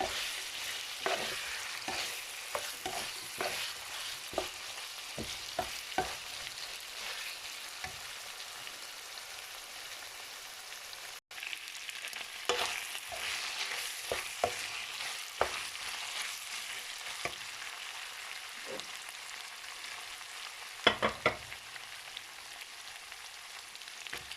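Chicken and sliced carrots sizzling in hot oil in a wok, with the steady hiss of frying and repeated scrapes and knocks of a utensil stirring against the pan. A cluster of louder knocks comes near the end.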